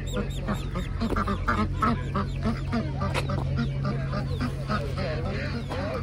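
Poultry calling, a steady run of short, repeated calls about three a second, with people talking in the background.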